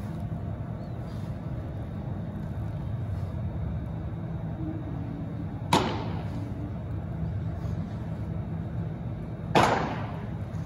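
Two sharp knocks about four seconds apart, one near the middle and one near the end, each ringing briefly as if in a large hall, over a steady low hum.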